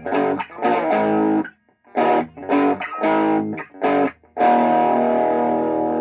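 Thomson Les Paul-style electric guitar played through a small 15-watt practice amp with the gain turned up for overdrive. A run of short chord stabs with brief gaps between them, then a chord struck about four and a half seconds in and left ringing.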